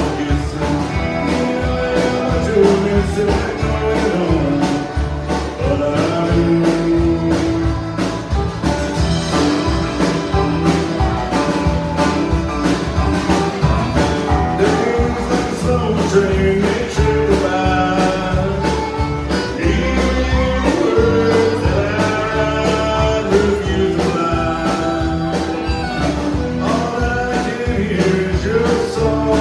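Live country band playing: fiddle over acoustic and electric guitars, bass guitar and drums keeping a steady beat, with a man singing.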